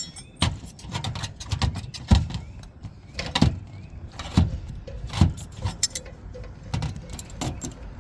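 Copper roofing sheet being worked with hand seaming tongs: irregular metallic clanks, clicks and knocks as the tool grips and folds the seam, the loudest strikes at about two, three and a half and four and a half seconds in.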